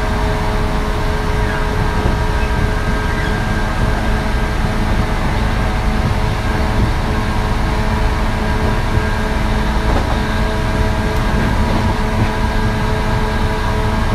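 JR 117 series electric train running at a steady speed, its MT54D traction motors whining at an even pitch over a loud, low rumble of the wheels on the rails.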